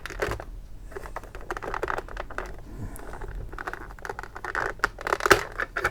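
Plastic case of a Tomy Super Cup Football tabletop game being turned over and handled, giving a scatter of small clicks, taps and scrapes, with a louder knock about five seconds in.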